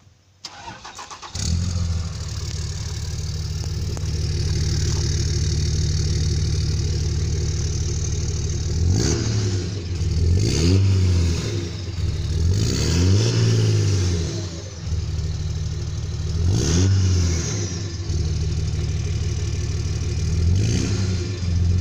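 2003 Dodge Ram 2500's 5.9-litre Cummins turbo-diesel straight-six cranks for about a second, starts, and idles, heard close to the exhaust tip. It is revved up and back down about five times, each rev rising and falling in pitch.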